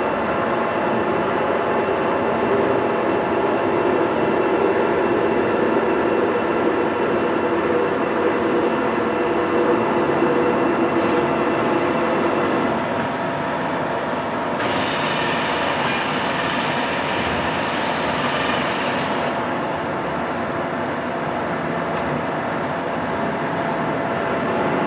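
Metalworking machine tool running steadily, a continuous mechanical hum with several steady tones, joined by a louder hiss for about five seconds past the middle.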